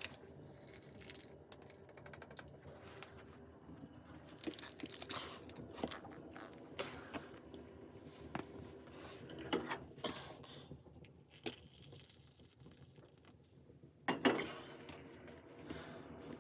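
Irregular crunching, rustling and crinkling handling sounds at close range, with a few louder rustles about a third of the way in, near the middle and near the end.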